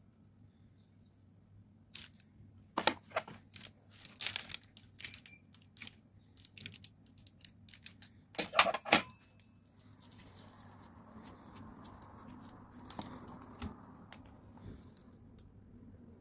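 Baking paper in a metal baking tray crinkling and crackling as a dough pie is laid on it and its edges are pressed with a fork, in a run of sharp crackles and clicks that is loudest a little past the middle. After that comes a softer, steady rustle as dough is handled.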